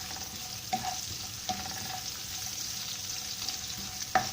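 Sliced onions sizzling in hot oil in a wok, a steady hiss, while a spatula stirs them and knocks against the wok three times, each knock ringing briefly, the loudest near the end.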